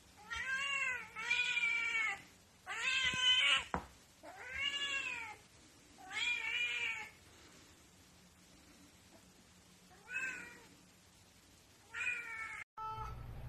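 A grey Korat kitten meowing repeatedly, about seven short meows, each rising and falling in pitch, with a quiet pause in the middle. Near the end the sound cuts out briefly and a low steady hum follows.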